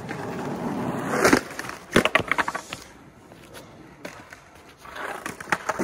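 Skateboard wheels rolling on concrete, then about two seconds in a sharp clack followed by a quick run of clatters as the board hits and bounces on the ground. The rolling noise builds again near the end.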